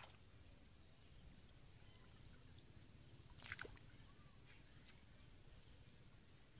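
Near silence: faint low outdoor rumble, with one brief sharp sound about three and a half seconds in.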